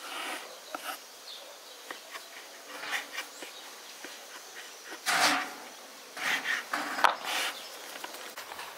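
A knife slicing through rolled, floured noodle dough onto a wooden board, with scattered soft taps as the blade meets the wood. About five seconds in, and again from about six to seven and a half seconds, there is louder rustling as the cut dough is handled.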